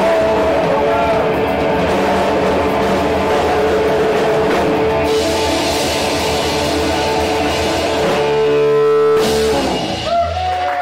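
Live rock band playing with electric guitars and drum kit. The band ends on a held chord that breaks off about nine seconds in.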